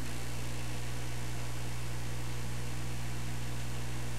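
Steady low electrical hum with constant hiss over it, the background noise of an old analog videotape recording.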